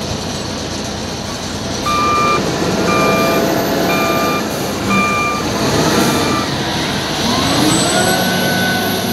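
LiuGong 848H wheel loader's diesel engine running, with its reversing alarm beeping about once a second, five beeps. Near the end the engine revs up, rising in pitch.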